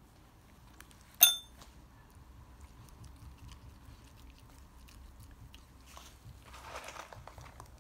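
A dog-training call bell struck once about a second in: a single short metallic ding that dies away quickly. Then a puppy chews a treat from a hand, with small wet clicks and crunches that grow busier near the end.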